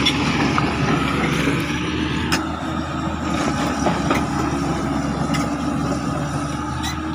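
Diesel engine of a new Hitachi excavator running steadily, with a few light knocks scattered through it.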